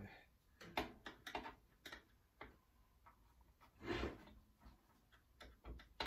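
Scattered light clicks and knocks from the metal door and wire rack of a Panasonic toaster oven being handled during disassembly, with a longer, louder rustle about four seconds in.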